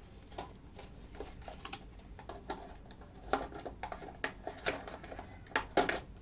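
Trading cards being worked out of a cardboard box by hand: scattered light taps, scrapes and rustles of card stock and cardboard, with a few sharper clicks around three and a half and six seconds in.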